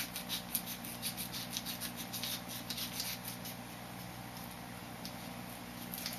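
Scissors snipping open a package, with the wrapper crinkling: a quick run of clicks and snips for about the first three seconds, then only a few scattered ones.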